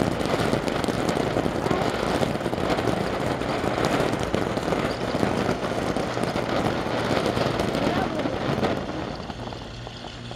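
Ground fountain firework spraying sparks with a steady hiss that fades as the fountain burns out about nine seconds in.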